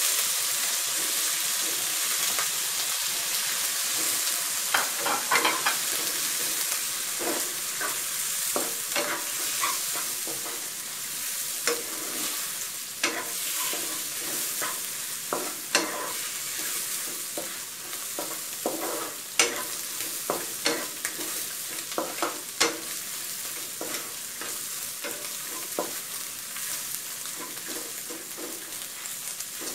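Fish balls sizzling in hot lard with minced garlic and chilli in a wok, stir-fried with a wooden spatula that scrapes and knocks against the pan every second or so. The sizzle eases a little as the fish balls take up the heat.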